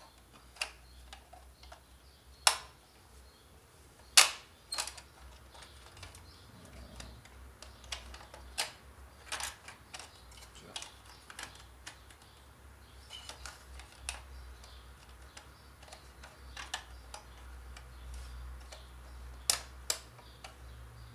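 Irregular clicks and knocks of plastic projector parts being handled and pressed into place on the chassis of a Panasonic PT-AE700E projector, the sharpest about two and a half and four seconds in.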